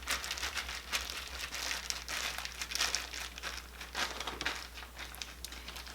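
Plastic deep-conditioning cap crinkling and rustling irregularly as hands massage it over conditioner-coated hair.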